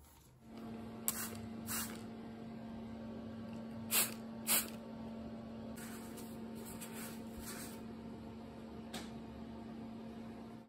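A cloth rubbing and wiping over a board, in a few short swishes; the loudest two come about four seconds in. Under it runs a steady low electrical hum.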